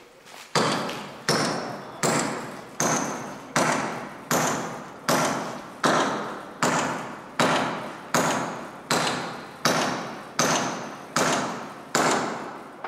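A hammer driving a nail into a timber roof beam: about sixteen steady blows, a little more than one a second, each with a short ringing tail.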